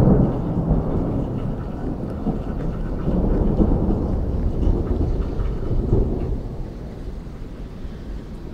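Thunder from a nearby lightning strike: it starts suddenly, then rolls on as a long low rumble with fresh swells about three and six seconds in, dying away near the end.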